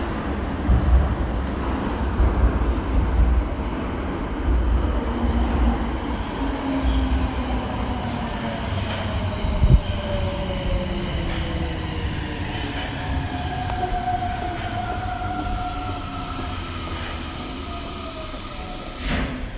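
Tokyo Metro 02 series subway train slowing to a stop. The running-gear rumble fades while the traction motors' whine falls steadily in pitch, with a sharp knock about ten seconds in and a short burst of noise near the end.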